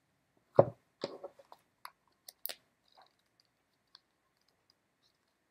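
A single thump about half a second in, then a scatter of soft clicks and paper rustles as a small paperback guidebook is handled and its pages are turned.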